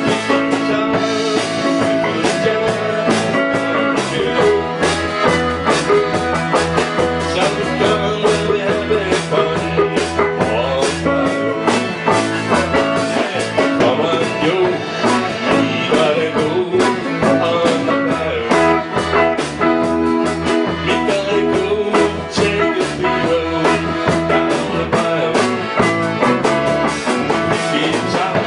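Small live band playing an upbeat country-rock tune: electric guitar, electric bass, drum kit and piano accordion together, with a steady drum beat.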